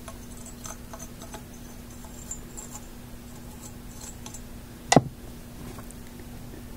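Faint clicks and light taps of a 6C33 glass vacuum tube being turned over in the hands, with one sharp knock about five seconds in, over a steady low hum.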